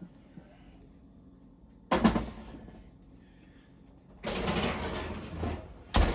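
Oven door and cookware being handled. There is a clank about two seconds in, a sliding scrape lasting over a second, and a sharp knock near the end.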